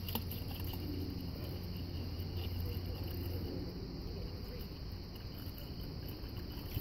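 Pink antifreeze concentrate glugging from a plastic jug into the coolant reservoir. It is faint under a steady high-pitched chirring and a low hum.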